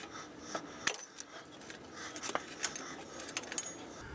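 Irregular metallic clicks and clinks of a hand wrench working at the grease fitting on the front leaf spring mount.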